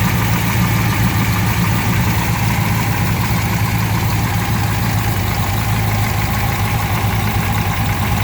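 Engine idling steadily on its first run after a bad valve lifter was replaced.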